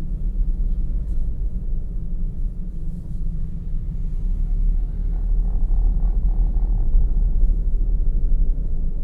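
Steady low rumble of a car driving, road and engine noise heard from inside the cabin, swelling slightly in the middle.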